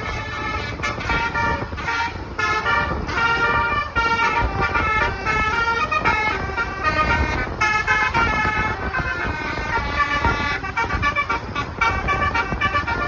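Bus basuri horn, a multi-trumpet musical air horn, playing a melody: its notes step quickly up and down over a low rumble.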